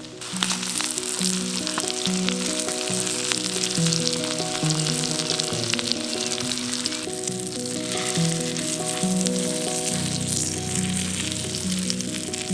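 Food sizzling and frying in hot oil in a pan over a campfire, a dense crackling hiss that starts suddenly about a third of a second in.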